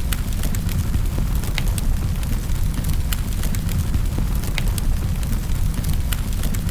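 Wood fire crackling in a fireplace: a steady low rumble of flames with sharp pops and crackles at irregular intervals.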